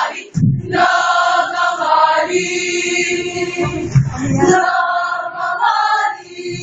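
A speech choir of many voices singing in unison, holding long notes, as part of a sabayang pagbigkas choral recitation.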